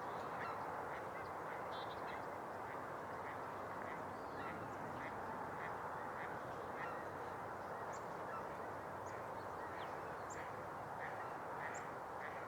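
Distant flock of geese honking continually, many short calls overlapping, over a steady background of noise.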